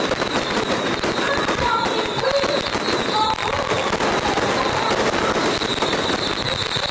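Strings of firecrackers going off in a dense, continuous crackle.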